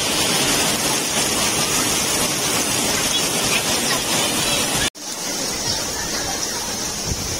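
Heavy rain pouring onto a swimming pool's water and its surrounds: a dense, steady hiss. It drops out for an instant about five seconds in, then carries on brighter and more hissing.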